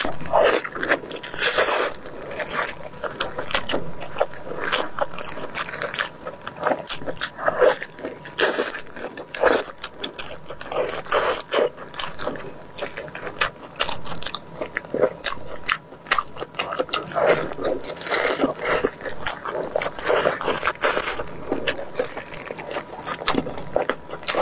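Wet chewing, biting and lip-smacking on braised pork knuckle, with squelches as gloved hands tear the soft skin and meat apart. The clicks and smacks come densely and irregularly the whole time.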